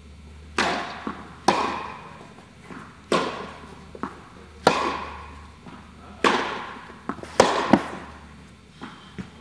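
Tennis balls struck back and forth by rackets in a rally, about half a dozen sharp hits with softer ball bounces between, each echoing in a large indoor tennis hall. A steady low hum runs underneath.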